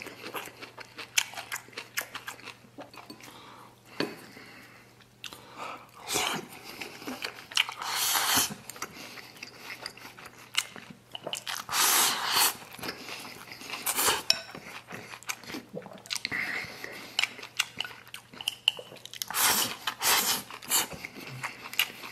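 A person chewing and biting a mouthful of rice with a pickled vegetable side dish close to the microphone, in irregular bursts with short clicks, loudest around 12 s and again near the end.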